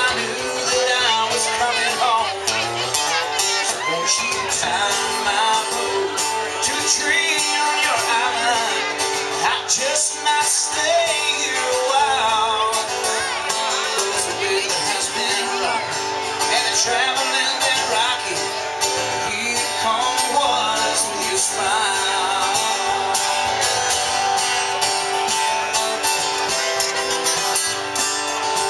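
Three acoustic guitars playing an instrumental break between sung verses of a slow country song.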